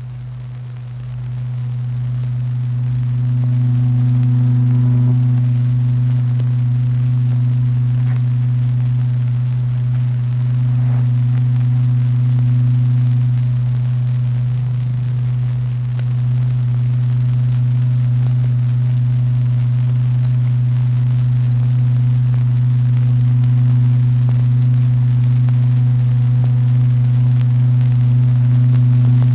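A steady low electronic tone with an octave overtone, driving the vibrating membrane that sets the paste in motion. It swells in over the first few seconds, then holds with a slight waver.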